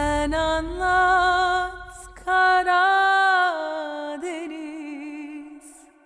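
End of the series' closing theme song: a lone voice holds long wordless notes that step up and down, turns to a wavering note about four seconds in, and fades out near the end.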